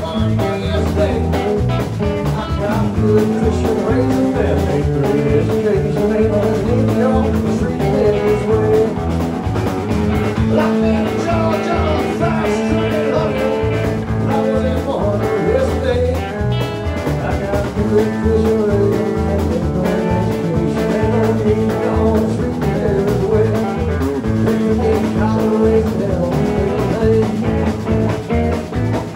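A live band of electric guitar, electric bass and drum kit playing a blues-tinged country-rock song, with continuous loud amplified music.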